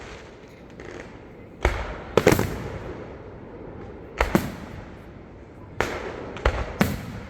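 Fireworks shells bursting overhead: a string of loud booms, some in quick pairs, each trailing off in a rumble. The bursts are loud enough to be felt in the chest.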